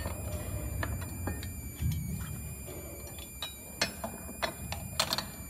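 Hands handling the plastic roller gearbox and a bracket inside a massage chair's back: a low rustle of handling with scattered sharp clicks and knocks of plastic and metal parts, the loudest toward the end.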